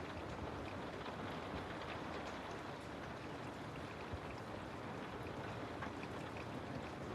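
Steady water noise with faint scattered ticks like drops.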